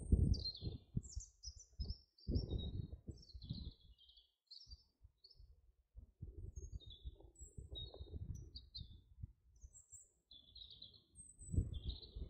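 Small songbirds chirping, many short high calls one after another throughout, over an uneven low rumble on the microphone that swells in the first seconds and again near the end.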